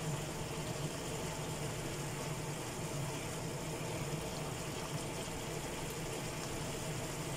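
Beef and white-radish stew simmering in a frying pan, a steady low bubbling over a constant low hum.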